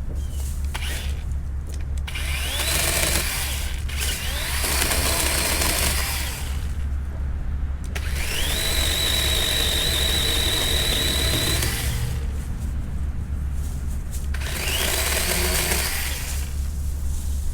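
DeWalt 20V cordless chainsaw cutting a branch in repeated bursts. Each burst opens with the electric motor whining up to speed, and the longest holds a steady whine for about three seconds near the middle, with short pauses between runs.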